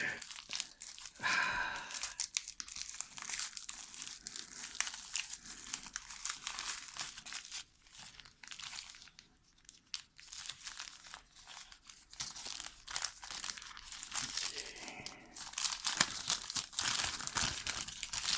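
Parcel packaging being crinkled and torn open by hand in irregular bursts, with a quieter lull about halfway through.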